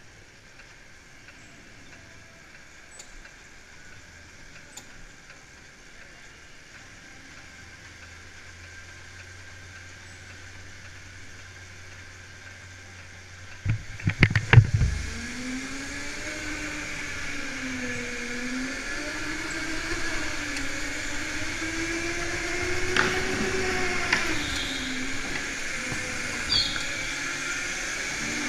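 A low steady hum for the first half, then a cluster of loud knocks about halfway through as the go-kart sets off. After that the kart's motor whines steadily, its pitch rising and falling with speed through the corners, with a higher whine above it.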